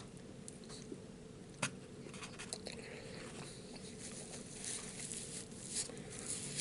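Faint chewing and mouth sounds of a man eating tamales, with scattered small clicks and one sharper click about one and a half seconds in.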